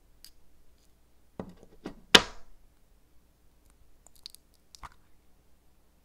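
Small clicks and taps of objects being handled on a hard surface, with one loud sharp clack about two seconds in and lighter ticks near the end.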